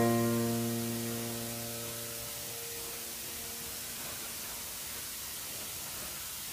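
Final sustained piano chord of a karaoke backing track, ringing and dying away over the first two to three seconds, leaving only a steady hiss.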